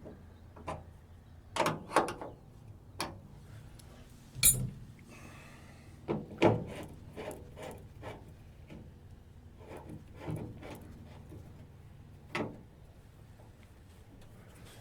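Irregular clicks and knocks of hardware and tools being handled while working on a truck door, about a dozen over the stretch, the loudest a sharp knock about four and a half seconds in.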